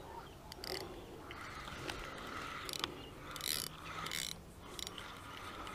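Fixed-spool fishing reel whirring and clicking in short, irregular bursts, about six in a few seconds, while a hooked fish is played on the rod.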